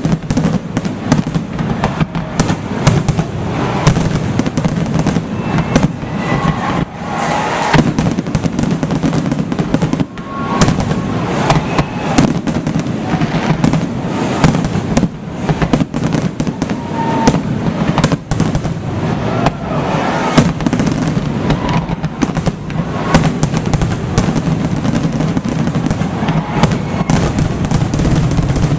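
Fireworks display: a dense, continuous barrage of sharp bangs and crackling bursts.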